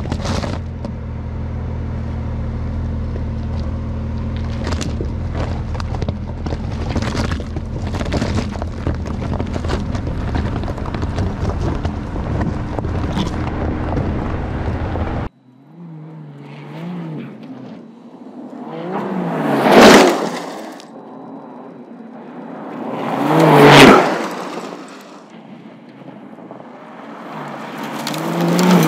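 Porsche 911 Dakar's 3.0-litre twin-turbo flat-six running low and steady while its tyres crawl over loose gravel and rocks, with stones cracking and crunching under them. Then, after a sudden cut, the car passes fast twice on a dirt track, its engine note rising and falling each time, with a third pass building near the end.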